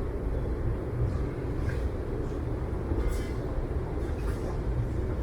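Rail vehicle running with a steady low rumble, with a few faint short hisses over it.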